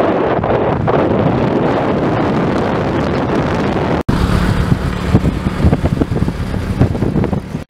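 Wind blasting the microphone of a camera on a moving motorcycle, with engine and road noise underneath. About four seconds in the sound cuts and resumes with a steadier low motorbike engine hum under the wind.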